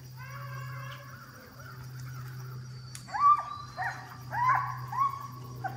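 Foxhounds of a mounted fox hunt baying through the woods: a long held call in the first second, then several drawn-out bays from about three seconds in, each rising and then holding its pitch.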